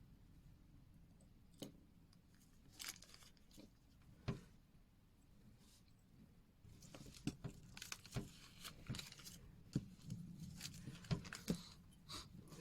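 Faint light clicks, taps and rustling from small tools and watch parts being handled on a workbench, a few isolated clicks at first and busier from about halfway through.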